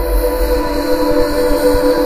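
Song slowed 800% and stretched into a steady ambient drone: several held tones, one over another, over a low rumble.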